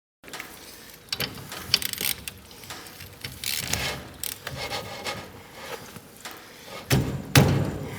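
Hand ratchet clicking in irregular strokes as lug nuts are worked by hand, with a louder clunk about seven seconds in.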